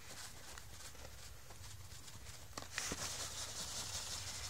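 Plastic mealworm tub being handled: a few light clicks, then from about three seconds in a steady dry rustle of fingers sifting through the grainy bedding.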